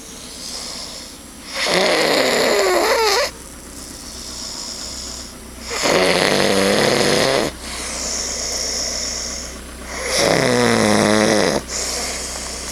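A sleeping man snoring: three loud snores about four seconds apart, each lasting about a second and a half, with quieter breathing between them.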